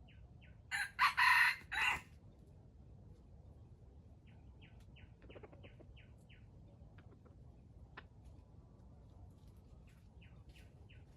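A rooster crows once, a harsh call of about a second starting about a second in. Later come runs of short, high, repeated chirps from small birds.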